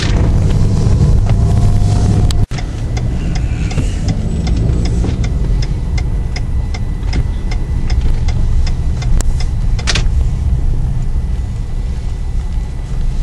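Car cabin noise: steady low engine and road rumble while driving, with a regular tick about twice a second. There is a brief sudden break about two and a half seconds in and a single sharp knock near the end.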